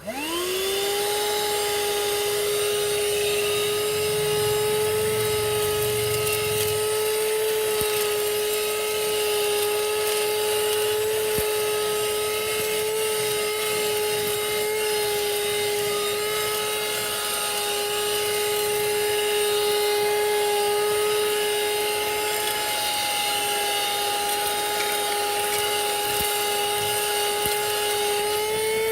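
Bergmann handheld car vacuum cleaner switched on, its motor spinning up within the first second to a steady high whine over a rush of air, running while it sucks up dust and small stones. Its pitch dips briefly near the end.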